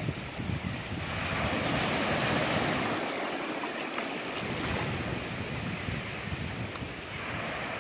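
Small ocean waves breaking and washing up on a sandy beach: a steady surf wash that swells about a second in. Wind rumbles on the microphone underneath.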